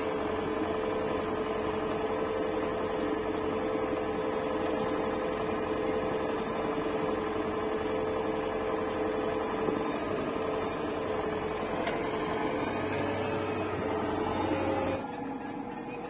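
Diesel engines of a JCB 3DX backhoe loader and a Mahindra 475 DI tractor running steadily with a constant hum. About fifteen seconds in, the sound drops abruptly to a quieter, duller engine.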